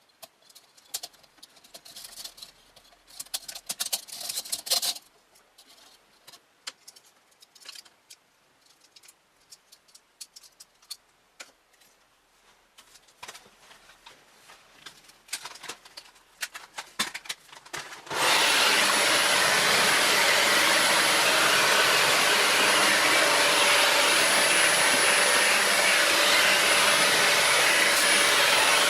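Light clicks and rubbing of computer parts being handled. Then, about two-thirds of the way in, a motor-driven blower or vacuum starts abruptly and runs loud and steady, a rushing sound with a faint high whine.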